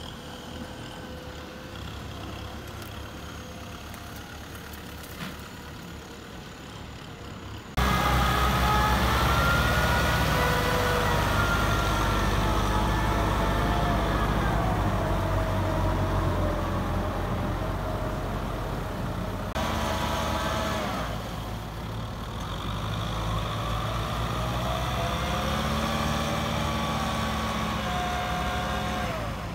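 Farm tractor engine running, quieter for the first several seconds, then suddenly louder at a cut, with an engine pitch that slowly rises and falls as it works under load.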